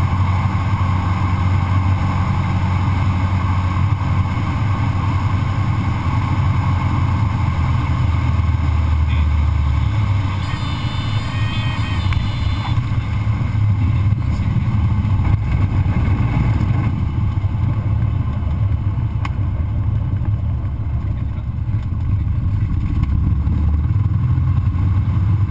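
Cessna 152's four-cylinder Lycoming engine and propeller droning steadily, heard inside the cabin, the low drone easing about ten seconds in. A high steady tone sounds for about two seconds near the middle.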